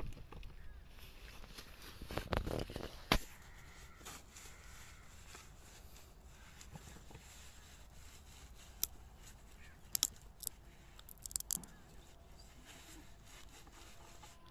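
Hands working the metal outlet pipe of a small diesel water pump, with the engine not running: rustling and rubbing with scattered clicks and knocks. The loudest are a cluster about two to three seconds in and a few sharp clicks around ten to eleven seconds.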